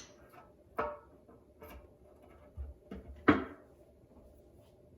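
A few separate knocks and clinks of kitchen containers and cookware being handled and set down, the loudest about three seconds in, over a faint steady hum.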